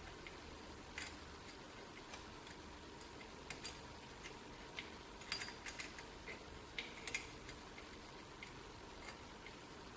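Faint, scattered light clicks and taps of a hand tool on small metal parts as a nut on the lathe apron is adjusted, bunched together about halfway through, over a faint steady hum.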